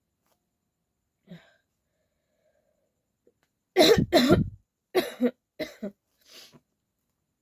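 A person coughing: one faint cough about a second in, then a loud fit of coughs in quick succession starting about four seconds in, trailing off into fainter coughs.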